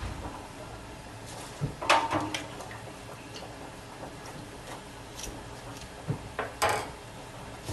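A few light knocks and clicks of kitchen things being handled, clustered about two seconds in and again near the end.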